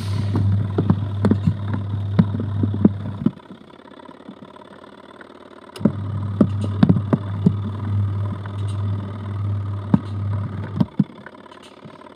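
Adler AD8051 mini washing machine's wash motor humming with irregular clicks and knocks from the tub. It runs about three seconds, stops for about two and a half, then runs about five seconds more before stopping again: the stop-start agitation of its wool cycle.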